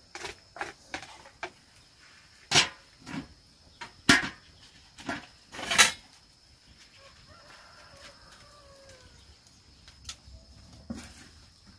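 Chickens in a farmyard, with sharp knocks and thumps among them. The three loudest thumps come in the first half, a second and a half or so apart. A faint drawn-out call follows a few seconds later.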